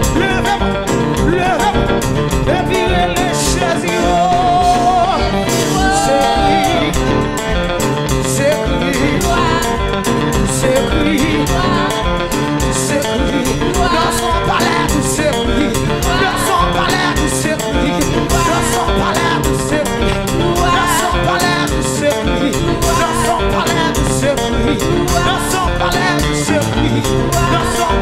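Live worship band playing a praise song: drum kit with cymbals, electric bass and keyboard, at a steady beat.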